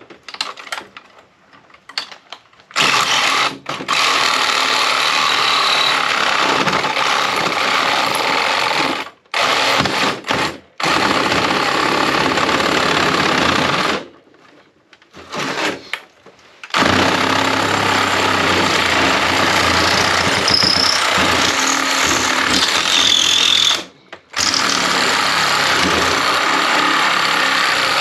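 A power tool cutting into the casing of a battery backup unit, run in several long bursts: it starts about 3 seconds in and stops briefly a few times, longest for a couple of seconds around the middle.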